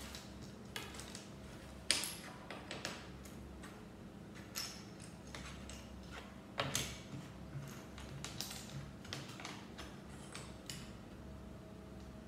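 Loose Lego bricks clicking and clattering as they are handled and sorted, a scattered run of light clicks with a couple of sharper knocks.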